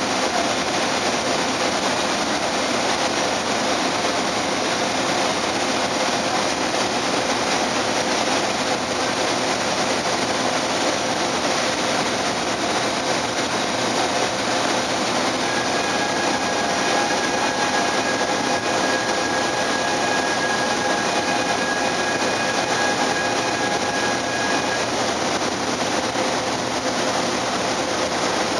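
Steady ferry engine drone heard on deck, an even mechanical rumble and hiss that never lets up. A faint higher whine joins about halfway through and fades out some ten seconds later.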